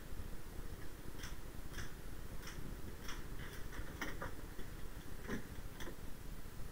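A string of short, sharp clicks at irregular intervals, about ten over several seconds, over a steady low rumble.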